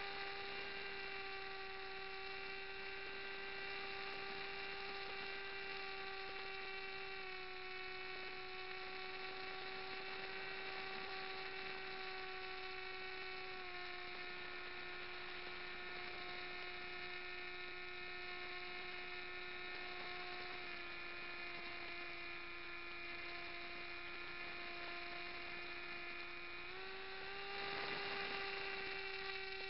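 The motor and propeller of a radio-controlled flying wing, heard through its onboard camera: a steady droning whine in flight. The pitch settles lower in a few small steps, then rises again near the end with a louder rush of air.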